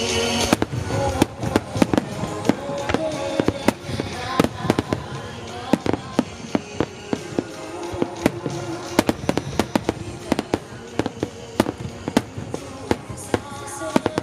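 Fireworks shells bursting in rapid succession, with sharp bangs and crackles several times a second, over music.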